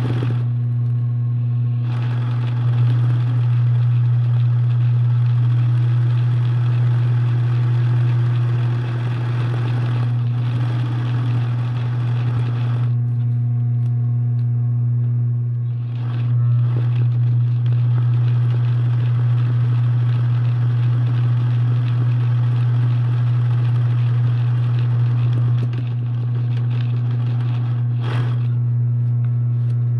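A loud, steady low hum that runs on unbroken, with fainter noise above it.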